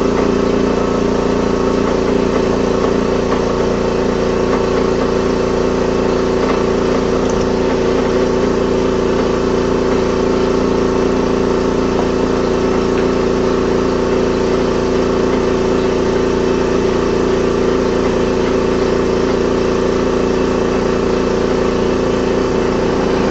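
Air compressor running steadily, a constant mechanical hum with no change in pitch or level.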